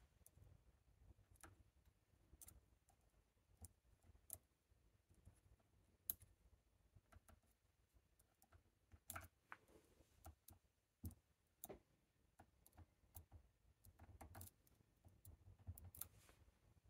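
Faint, irregularly spaced small metallic clicks of a hook pick working the pins of a Chicago Lock Co tubular lock held under tension.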